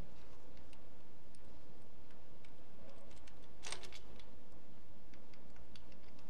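Light metallic clicks and taps as a camshaft bearing cap is set onto the cylinder head and its bolts are placed by hand, with one louder clink about three and a half seconds in. A steady low hum runs underneath.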